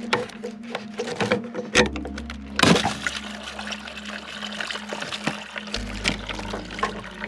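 Background music with a steady bass runs throughout. Over it, a quick run of small clicks as a plastic 2-inch union nut on a spa pump is spun off by hand. About two and a half seconds in comes a sudden splash, then water runs out of the opened pipe union for several seconds.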